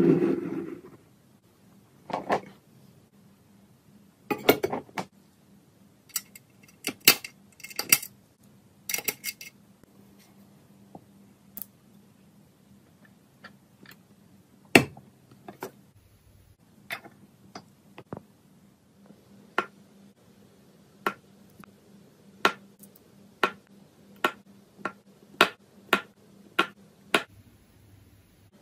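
Small metal parts clinking and clicking as they are handled and set down one by one on a hard surface: a series of separate sharp clicks, coming at a steadier pace near the end.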